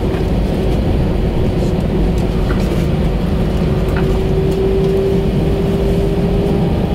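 Cabin noise inside an Airbus A320 taxiing after landing: a steady rumble with a steady hum held over it and a few faint clicks.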